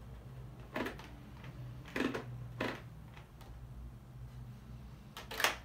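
Hands handling an Xlite X-403 carbon fibre motorcycle helmet while it is worn, adjusting it and its visor and chin strap: a few short knocks and scrapes, the loudest near the end.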